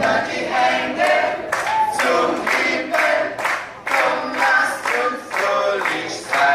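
A mixed group of amateur voices singing together unaccompanied, with hand claps keeping the beat about twice a second.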